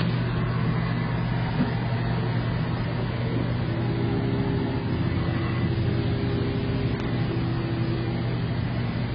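Haas VF-0E CNC vertical mill running with a steady machine hum. A higher steady tone joins from about a third of the way in until near the end.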